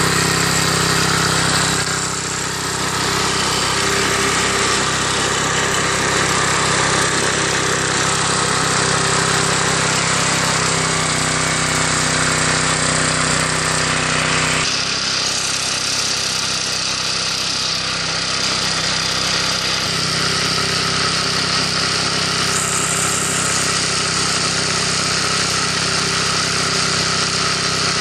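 Small single-cylinder lawn mower engine running steadily while it drives an alternator; its note changes suddenly about halfway through.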